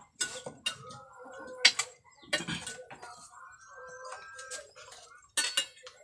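Spoons clinking and scraping against enamel bowls and plates as food is dished out, a few sharp clinks over a faint steady tone in the background.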